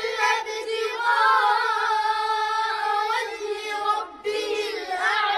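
A high voice chanting a Quran verse in slow, drawn-out melodic recitation, with long held notes. It pauses briefly about four seconds in, then resumes.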